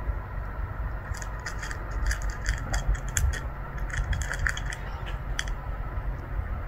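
A cat eating from a ceramic bowl: a run of quick, irregular chewing clicks and crunches lasting about four seconds, over a steady low rumble.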